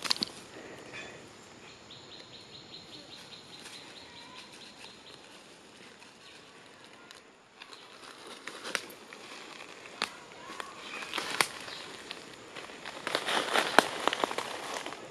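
Dry leaf litter crackling and rustling in short sharp bursts, thickest near the end, as pig-tailed macaques shift and forage on the forest floor. A faint, high, steady trill runs through the first half.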